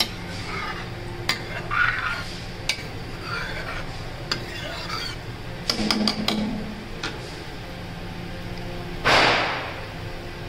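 Metal ladle stirring a kadai of simmering gravy, with scattered clinks and taps of the ladle against the pan over a steady low hum. About nine seconds in comes a loud, short burst of noise.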